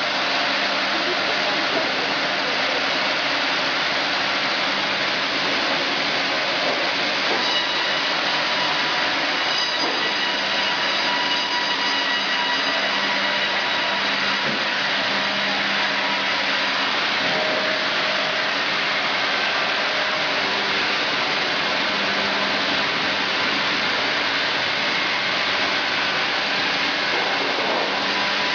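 Heavy machinery running: a steady, even mechanical noise with faint whining tones above it.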